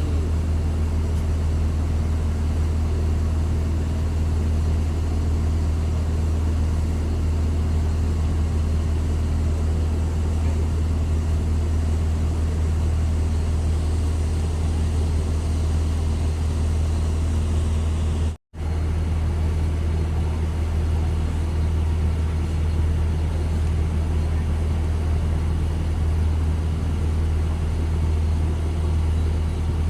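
An engine running steadily with a constant low hum, briefly cutting out about eighteen seconds in.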